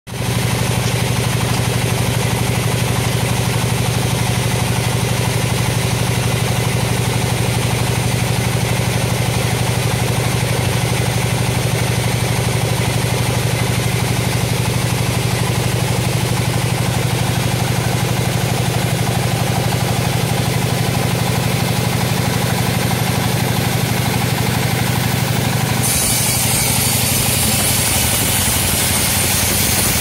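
Band sawmill machinery running steadily with a low engine-like hum. Near the end the sound changes abruptly and becomes brighter and more hissing.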